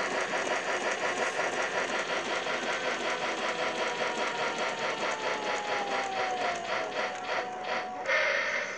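Toy steam locomotive running on its plastic track: a small electric motor whirring under a fast, even clatter of wheels and gears, slowing slightly towards the end. A louder hiss comes in near the end.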